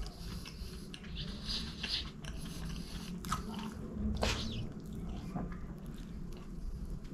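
Close-miked chewing of soft chocolate cake, with wet mouth and lip noises. About midway, a few sharp clicks and taps come as a metal fork cuts into the cake.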